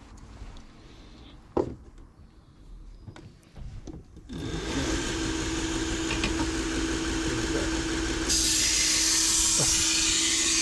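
A sharp click about a second and a half in, then a Toolker 1x30 belt grinder switches on about four seconds in and runs with a steady hum. About four seconds later a loud hiss joins as the knife's steel edge is ground on the 120-grit ceramic belt.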